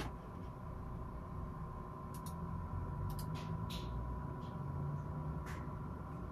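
A few brief, faint clicks and rustles from hands handling small clear plastic bags of LEGO parts, over a steady low room hum with a thin steady tone.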